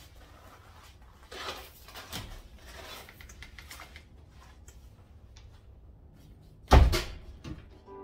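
A glass-paned wooden greenhouse door being handled and swung open, with faint rustling and light knocks, then pulled shut with one loud bang near the end.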